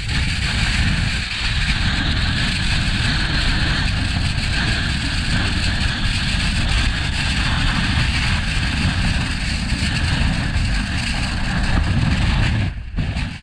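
Strong storm wind blowing steadily, with heavy low rumbling buffeting on the microphone; it cuts off shortly before the end.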